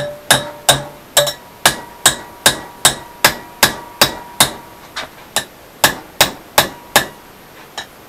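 Hand hammer striking a steel rod clamped in a bench vise, a steady run of blows about two and a half a second to bend the rod into a pump handle, with one last blow after a short pause near the end. The rod rings briefly after the blows.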